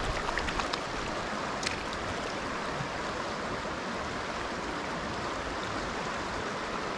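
Fast river riffle water rushing steadily. A few faint light ticks come in the first second, and one more just before two seconds in.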